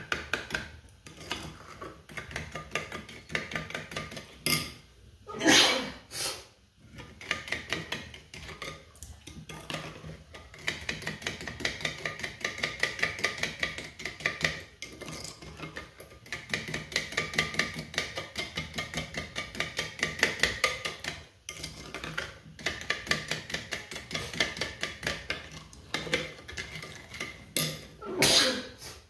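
Metal spoon stirring watery barbecue sauce in a ceramic bowl, clinking and scraping against the bowl in quick, even strokes, several a second. A louder sudden sound comes about five seconds in and again near the end.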